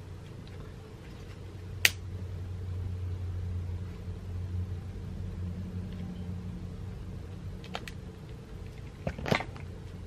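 Piezo click of a long-nosed butane utility lighter, then a low steady rumble for about five seconds as its flame is held to a bundle of dried white sage to light it. Near the end come a few smaller clicks and a louder tap.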